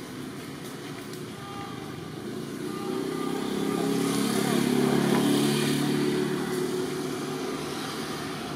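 A motor vehicle engine passing: a low, steady hum that swells from about two and a half seconds in, is loudest around five seconds, then fades away.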